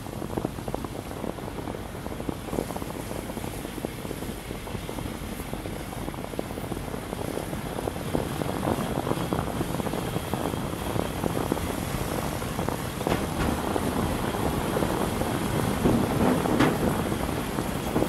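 Vehicle driving, heard from inside the cabin: steady engine and road noise. In the second half, rattles and knocks come more often and get louder as the vehicle rolls onto a temporary steel-truss bridge, with a few sharper knocks near the end.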